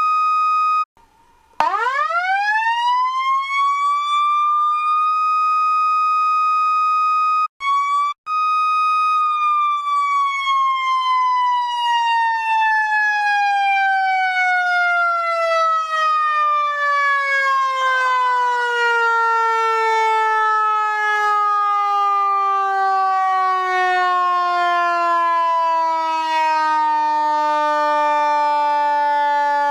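Federal Signal EQ2B electronic siren imitating a Q2B mechanical siren. A short steady tone is followed by a wind-up over about four seconds to a held high pitch. After a brief cut-out, the pitch slowly winds down over about twenty seconds.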